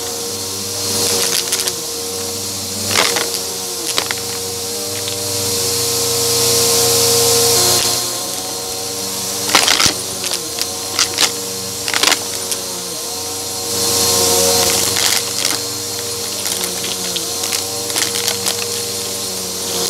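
Bissell upright vacuum with its brushroll running on shag carpet, heard from a microphone mounted on the vacuum: a steady motor hum with sharp clicks and crunchy rattles as coins and pebbles are sucked up. Three times the airflow swells into a louder rush and then falls back.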